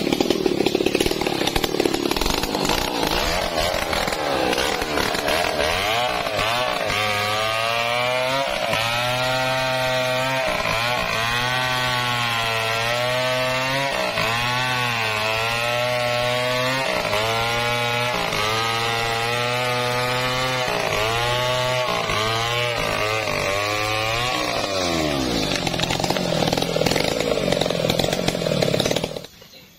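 Stihl 070 two-stroke chainsaw at full throttle, cutting through a thick mahogany trunk; its engine note wavers up and down as the chain loads in the wood. Near the end the revs fall away as the saw comes off the cut.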